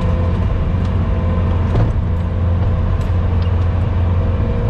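Skid steer engine running steadily, a low even drone with a faint steady whine above it.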